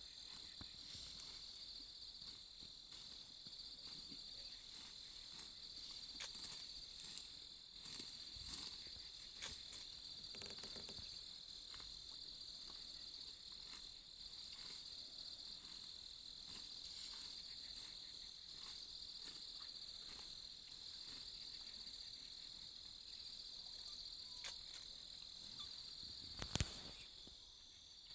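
Steady high-pitched chorus of insects, cricket-like, droning without pause, with scattered faint ticks and one sharp click near the end.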